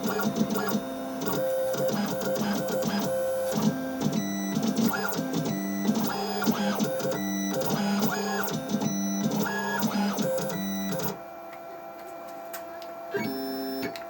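Stepper motors driving machine axes, whining at steady pitches that jump to new pitches every fraction of a second as the moves change speed. The sound drops off sharply about eleven seconds in, with one more short move near the end.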